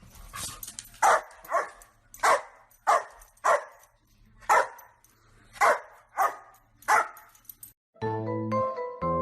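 A dog barking, about nine sharp single barks at uneven intervals. Background music with bell-like notes comes in near the end.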